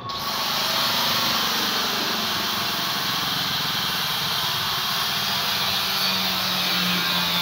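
A machine running steadily: a loud, even hiss-like noise that starts abruptly, with a low hum growing stronger near the end.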